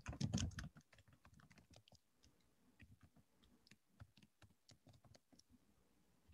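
Faint typing on a laptop keyboard, a quick, irregular run of key clicks as login credentials are entered, stopping about five and a half seconds in.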